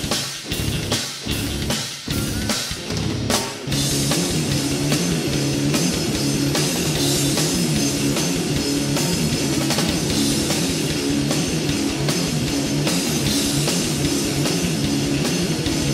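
Rock band demo recording with electric guitar and drum kit. For the first few seconds the band plays stop-start hits with short gaps between them, then from about four seconds in it plays continuously.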